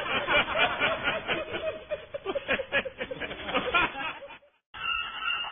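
Fast, rhythmic snickering laughter that cuts off suddenly about four seconds in; after a short gap, music starts near the end.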